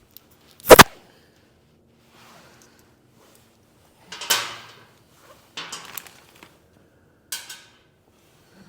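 Hand tools and parts being handled during motorcycle shift-linkage work: a sharp double clank about a second in, then several shorter rummaging, scraping clatters.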